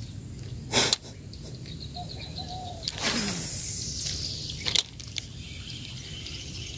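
A lure cast with a fishing rod: a whoosh about three seconds in, falling in pitch as the rod swings and line pays out from the reel, with a sharp click about two seconds before it and another about two seconds after. Birds chirp faintly in the background.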